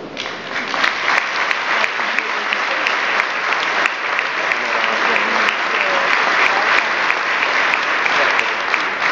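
Applause from a large audience, dense clapping that breaks out at once and keeps up steadily.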